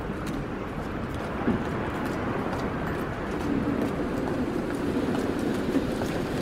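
Low bird calls over a steady background of noise.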